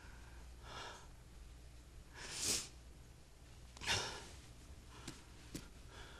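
Three short breathy exhales about a second or two apart, the middle one the loudest, in a quiet room, with two faint clicks near the end.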